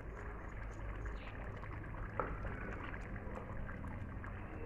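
Wet washed chicken pieces being handled in a plastic bowl of water, with the doro wat stew in the pot simmering on a burner over a steady low rumble. There is a brief sharper sound about two seconds in.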